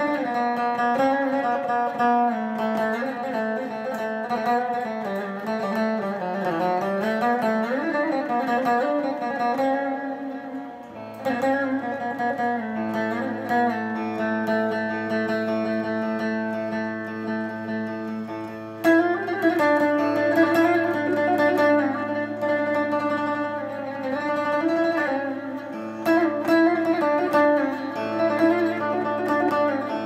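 Electric bağlama (long-necked saz with pickups) played as a free improvisation in makam Hicaz, with sliding pitches in the first part. A steady low drone comes in about eleven seconds in and holds under the plucked melody.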